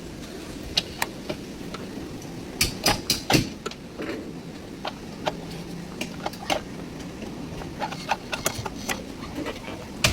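Irregular sharp knocks and clicks of tools being worked, over a steady low hum, with a quick cluster of knocks about three seconds in.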